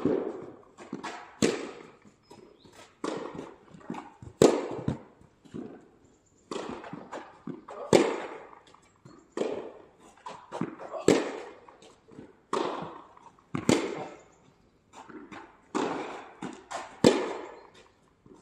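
Tennis ball struck back and forth by racquets in a rally, a sharp hit about every one and a half seconds, with softer knocks between the hits.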